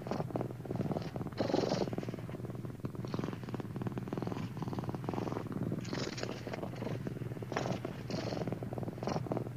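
Domestic cat purring steadily, with several short bursts of paper crinkling as it rubs its head against a brown paper grocery bag.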